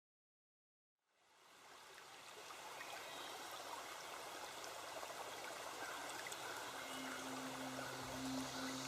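Flowing water, like a stream, fading in from silence about a second in and running steadily. Low sustained music notes enter near the end.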